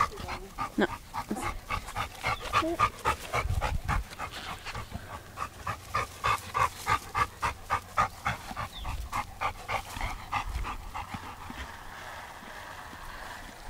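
Black Labrador retriever panting hard after chasing a ball, quick regular breaths several a second, dying away near the end.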